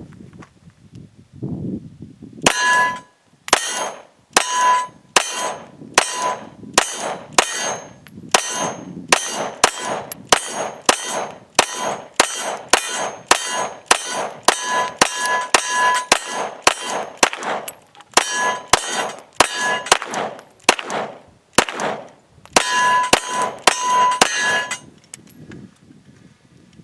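Glock 17 9mm pistol fired in a steady string of about thirty rounds, roughly one and a half shots a second, emptying a 33-round magazine. Many shots are followed by the ring of a steel target being hit.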